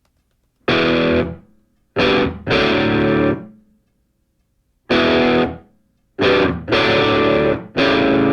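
Music: a distorted electric guitar playing loud chords in stop-start stabs, each held about half a second to a second and a half, with short silences between them.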